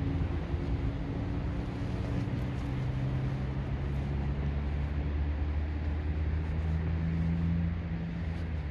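An engine running with a low, steady hum whose pitch shifts slightly, growing a little louder and then fading near the end.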